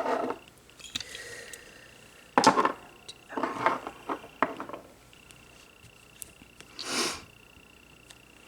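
Nail-art stamping supplies being gathered and handled on a table: several short bursts of clatter and rustle as items are picked up and set down.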